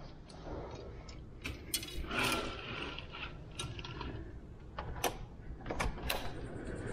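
A door's latch and handle clicking and rattling as the door is unlocked and opened: a string of sharp clicks spread over a few seconds, the loudest cluster about two seconds in.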